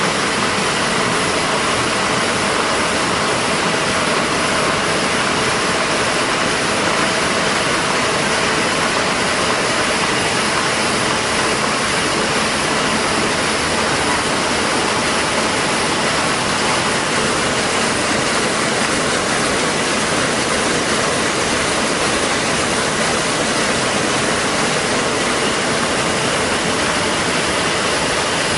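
ZF-323 courier-envelope-making machine running steadily: an even mechanical hiss and whir with faint constant tones, with no breaks.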